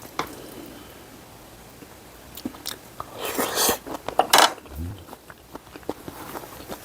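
Close-up eating sounds: chewing with scattered wet mouth clicks, and a louder noisy stretch of mouth sounds about three to four and a half seconds in.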